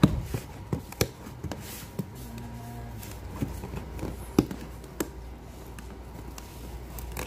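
Hands handling a cardboard box and working a plastic box cutter on its lid: irregular sharp taps and clicks, the loudest right at the start and about a second in.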